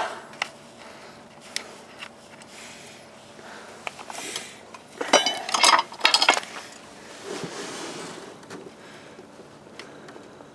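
Clattering and scraping of a Tanaka chainsaw being handled and tipped over a waste-oil pan to drain its chain oil, with a few sharp clicks and a burst of rattling knocks in the middle.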